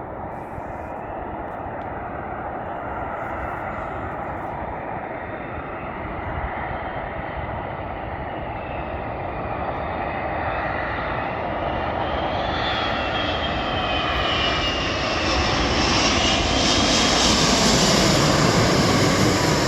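Airbus A380 coming in to land, its four jet engines growing steadily louder as it closes in and passes near, loudest near the end. In the second half a high whine slides down in pitch over the roar.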